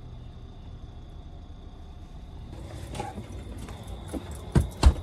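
A cooler being handled: a light click, then two loud knocks close together near the end, over a low steady hum.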